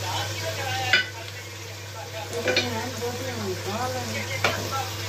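Sliced onions sizzling as they fry in oil in a pan, a steady crackling hiss. A few sharp clinks of dishes come through it, about one second in, halfway through and near the end.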